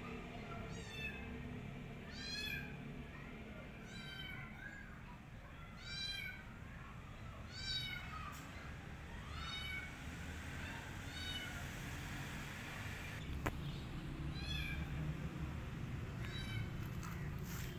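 A kitten meowing over and over, high-pitched calls that each rise and fall in pitch, about one every second and a half.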